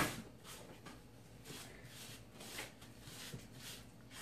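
Hand mixing a dry spice rub in a bowl: faint, irregular soft scratching of fingers working through the powder.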